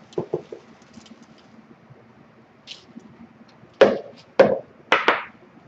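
Rolled oats being scooped from a cardboard carton with a measuring cup and tipped into a plastic mixing bowl: a few light knocks and rustles at first, then three loud knocks with a rattle of oats about half a second apart near the end, the last trailing into a short pour of oats.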